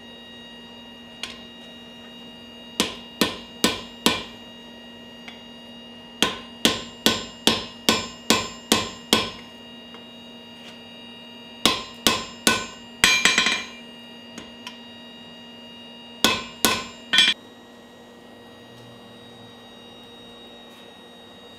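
Hand hammer striking a red-hot axe head on a steel anvil in bursts of sharp, ringing blows, flattening the round socket into an oval. There is a quick rattle of light taps in the middle, and the hammering stops a few seconds before the end.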